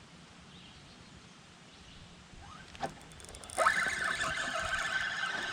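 A fishing reel being cranked, a steady whirring with a fast fine ticking that starts about two thirds of the way in, after a single click. The reel is bringing in a small fish, a rock bass.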